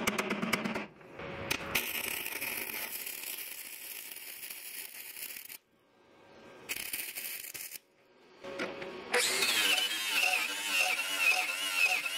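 Flux-core welding arc crackling and hissing on the steel mower deck in short stop-start runs. About nine seconds in, an angle grinder starts and grinds the deck with a high, wavering whine.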